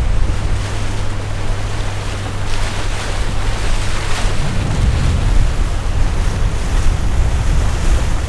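Small motorboat underway: its engine runs with a steady low drone under the rush of water past the hull, and wind buffets the microphone. The drone is clearest for the first two seconds or so, then merges into a broader rumble.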